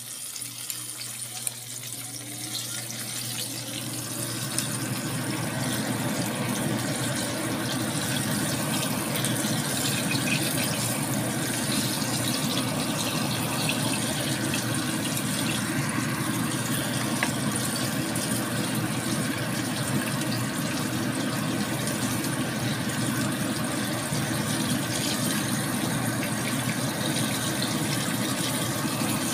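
Hot oil sizzling steadily in a frying pan as wonton-wrapped banana rolls fry, swelling over the first few seconds and then holding at an even hiss.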